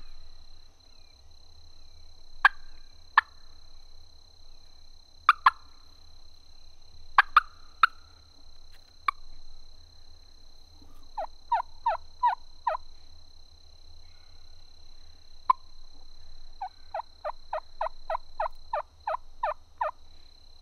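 Turkey calling: several sharp single clucks in the first half, then two series of yelps, about six notes around eleven seconds in and about a dozen from about seventeen seconds on, each note sliding down in pitch. A faint steady high-pitched tone runs underneath.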